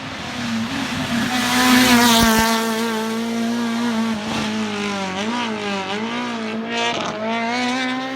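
Race car engine at high revs going past on a hillclimb course, loudest about two seconds in, its pitch dipping and climbing again twice in the second half as the driver lifts and gets back on the throttle.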